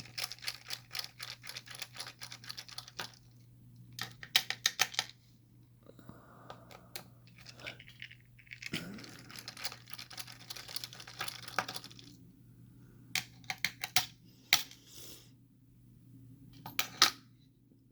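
Bursts of quick small metallic clicks and rattles as a picked challenge lock is taken apart, its small metal parts clicking and tinkling against each other.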